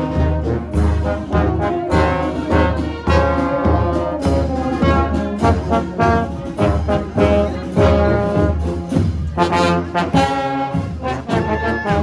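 Marching brass band playing a tune, trombones prominent, over a steady drum beat.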